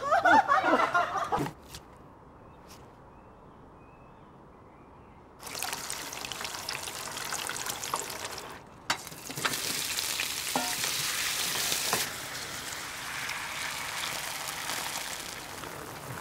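Brief excited voices at the start. After a quieter stretch, food sizzling and bubbling in hot oil in a pot begins about five seconds in, breaks off for an instant near the middle, then comes back louder. It settles into the steady bubbling of a liquid at a hard boil.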